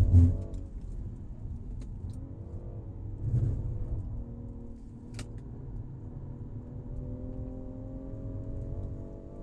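BMW M340i's turbocharged 3.0-liter inline-six at speed on a track lap. The engine note drops as the car slows for a corner, then rises steadily under acceleration through the second half. Heavy low thumps come at the start and again about three and a half seconds in.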